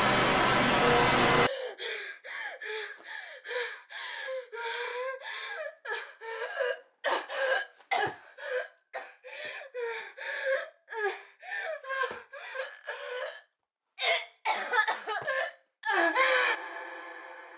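Music that cuts off abruptly about a second and a half in, followed by a woman gasping and whimpering in short broken breaths, with brief pauses between them.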